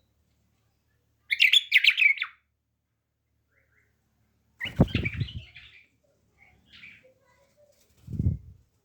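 Pet bird, a bulbul, giving a quick burst of chirps about a second in and more calls around the middle. Low thumps come with the second burst and again near the end.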